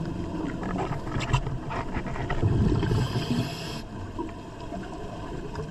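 Underwater breathing of a diver: a rush of exhaled bubbles for about a second and a half partway through, over a steady low rumble, with a few small clicks about a second in.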